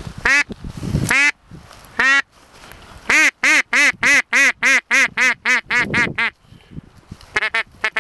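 Mallard-type duck quacking: three single quacks, then a steady run of about a dozen quacks at roughly three a second. Near the end it changes to a faster, even chatter.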